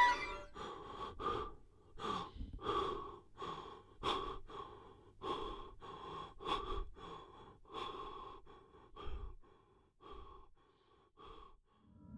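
A man panting hard and fast in fear, about two to three quick breaths a second. The breaths grow fainter over the last few seconds and stop.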